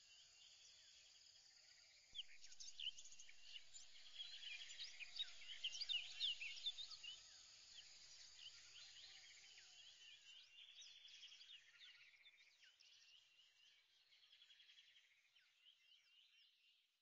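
Faint birdsong: many short chirps from several birds, swelling to a peak about six seconds in and fading out by about twelve seconds.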